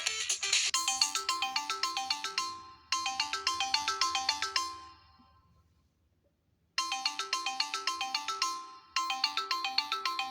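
Samsung Galaxy Grand Core stock ringtones playing one after another. A short melody of quick notes loops twice and fades out, then after about a second and a half of silence a different ringtone starts and repeats once.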